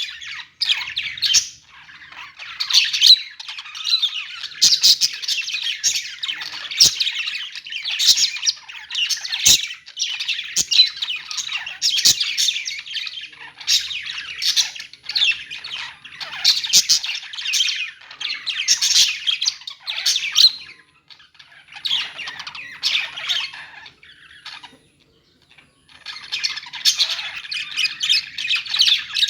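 A group of caged parakeets chirping and squawking in a dense, overlapping chatter. The chatter drops away briefly about 24 seconds in, then picks up again near the end.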